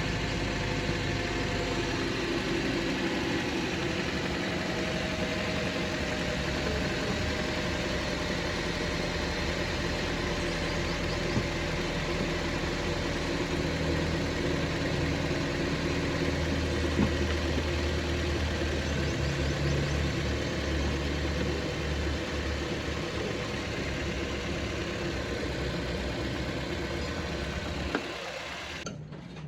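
Toyota Corolla XLi's engine idling steadily, then cutting off near the end.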